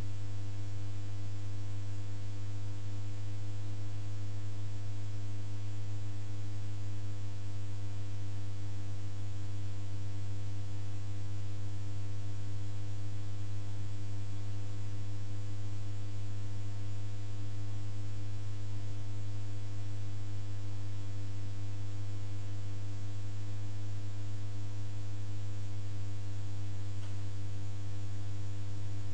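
A steady low electrical hum with a hiss over it, unchanging.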